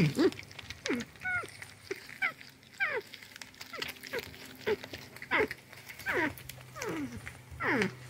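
North American porcupine whining: a run of short crying calls, each sliding steeply down in pitch, about one or two a second.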